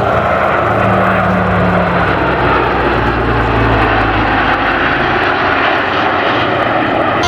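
Aircraft flying past in a steady, loud engine drone, with a low hum underneath: the Super Constellation's 18-cylinder piston radial engines flying in formation with the Patrouille Suisse jets.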